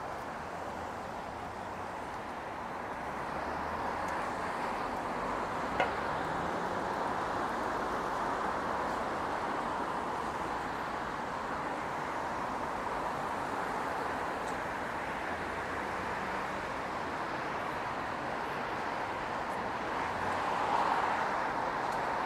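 Steady hiss of city street traffic, cars and tyres passing on a wide road, swelling slightly near the end. A single sharp click about six seconds in.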